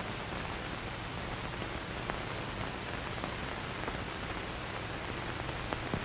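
Steady hiss with a few faint clicks: surface noise of an old optical film soundtrack.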